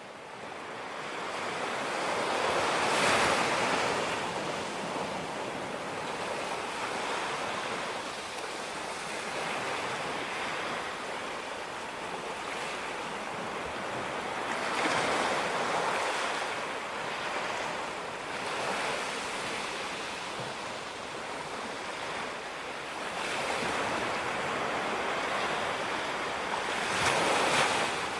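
Ocean surf washing onto the beach, a steady rush with waves breaking every several seconds, some wind on the microphone.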